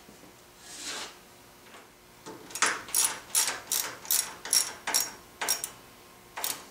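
Socket ratchet wrench clicking in short runs, about two to three a second, as it tightens the mounting bolts of a table saw fence guide rail in the final crank down.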